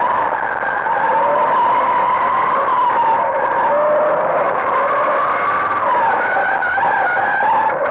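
Competition car engine running hard at high revs, heard from inside the stripped, roll-caged cabin. The pitch climbs and drops several times as the driver works the throttle and gears.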